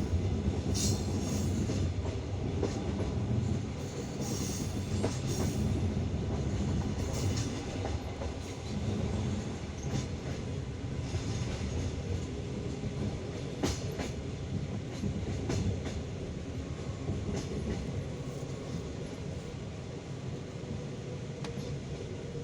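Passenger train carriage wheels rumbling and clacking over rail joints and switches, heard from inside the carriage, with scattered sharp knocks and a few brief high wheel squeals in the first half.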